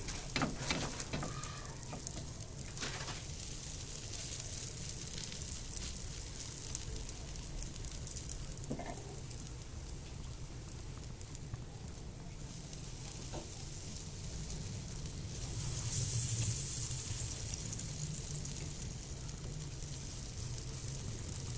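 Margarine sizzling in a frying pan under bread-wrapped banana skewers as they toast, a steady frying hiss that grows louder for a few seconds about three-quarters of the way through.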